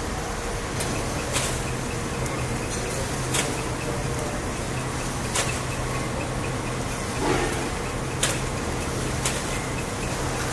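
Full-servo horizontal flow wrapping machine running: a steady mechanical hum with sharp clicks about every one to two seconds as it cycles, and a brief rustle about seven seconds in.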